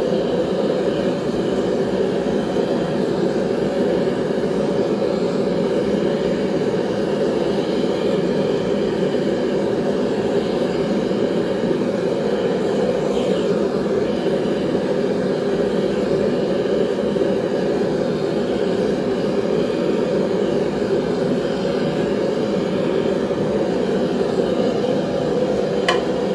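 Forge running with a steady, unbroken roar while knife-blade steel is heated for annealing; a light click sounds once near the end.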